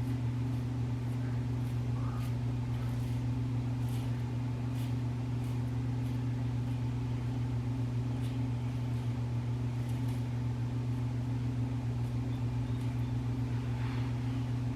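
A steady low hum, like a small motor or an electrical appliance running, with a few faint small clicks scattered through it.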